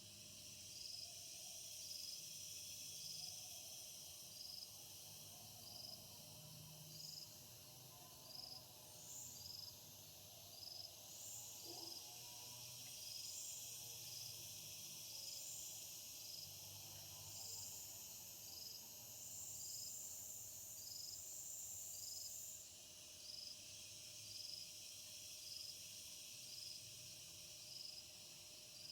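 Faint night insect chorus: a cricket chirps about once a second over a steady high buzz, and a second insect chirps alongside it for a while. The high buzz cuts off abruptly about three-quarters of the way in.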